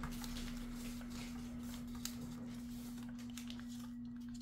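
Sheet of continuous-feed computer paper rustling and crinkling in light, irregular ticks as hands fold and crease it into a paper airplane, under a steady low hum.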